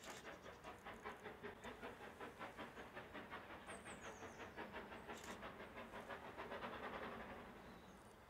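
Steam train running, with a steady rapid beat of about five pulses a second and a swell of steam hiss about seven seconds in.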